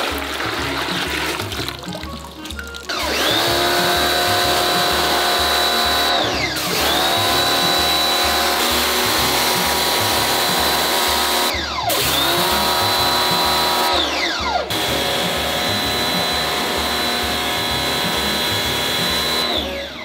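Electric pressure washer spraying in four spells of a few seconds each. In each spell the motor whines up to a steady high pitch under a strong hiss of water spray, and the whine slides down and stops as the trigger is let go.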